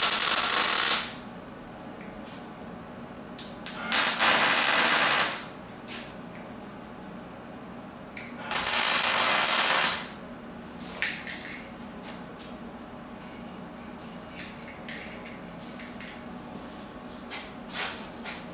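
Wire-feed welder tacking 1/8-inch steel angle iron: three bursts of welding, each a second to a second and a half long, about four seconds apart, followed by scattered light clicks.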